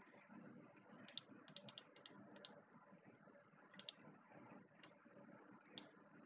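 Faint computer keyboard keystrokes: a quick run of taps about a second in, then single clicks every second or so.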